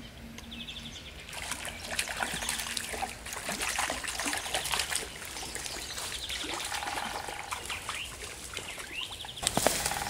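Small hooked brown trout splashing and thrashing at the surface of a shallow stream as it is played on the line toward the net. The splashing starts about a second in and goes on irregularly, with a few bird chirps.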